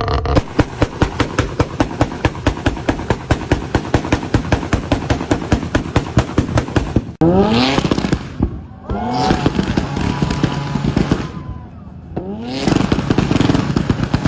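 Mazda RX-7 two-rotor rotary engine exhaust idling with the choppy, lumpy 'brap brap' beat of a tuned rotary, about four to five pulses a second. About halfway in, after a cut, an engine is revved in three quick blips, each rising in pitch and dropping back.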